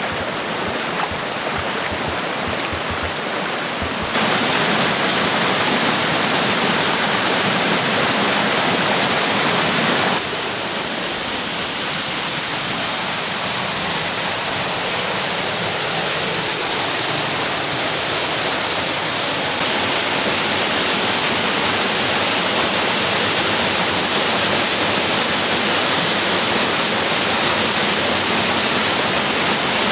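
Waterfall on a mountain creek, water rushing steadily and loudly, with sudden changes in level about four, ten and twenty seconds in.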